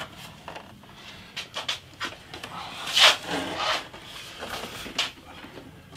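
Plastic MIDI keyboard being lifted and turned over on a felt-covered bench: scattered light knocks and rubbing, with a louder scraping rustle about three seconds in.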